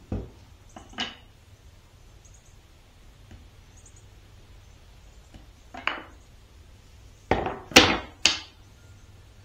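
Sawn walnut workpieces knocked against each other and set down on a wooden workbench: a couple of single knocks at the start and one near the middle, then three louder knocks close together near the end.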